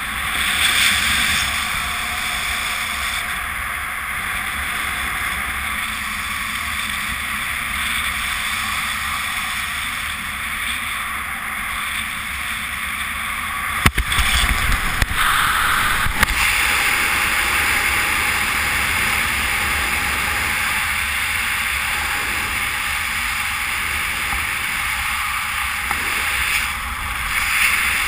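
Steady rush of air buffeting the microphone during a speedflying flight, with a few sharp knocks about halfway through.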